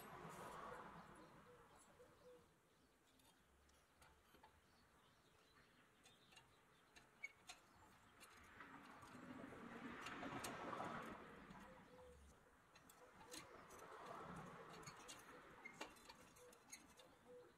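Faint handling sounds of a rusted pressed-steel toy airplane being worked with a screwdriver and a pick: scattered light metallic clicks and taps, and a few soft scraping swells, all close to near silence.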